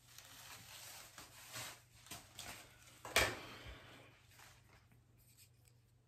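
Faint rustling of a comb drawn through wig hair, with one sharp clack about three seconds in as a small object is handled.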